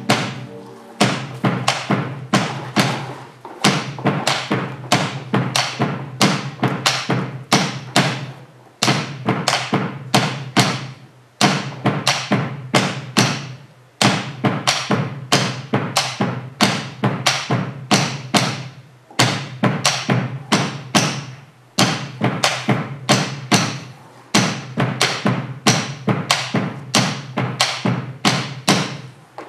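Bombo legüero drums beaten in a fast, driving rhythm of sharp strikes, phrased with short breaks every few seconds. A sustained pitched musical sound fades out about a second in.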